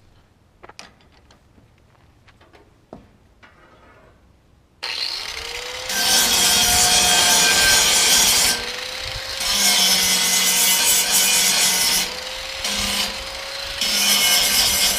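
A few light handling clicks, then about five seconds in a power grinder starts up and grinds metal, its motor whine steady under a loud hiss. The sound eases off a few times as the disc lifts from the work and cuts off at the end. This is surface prep before welding.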